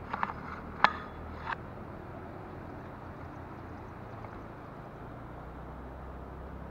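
Outdoor ambience: a steady low rumble, with three short sharp chirps or clicks in the first second and a half.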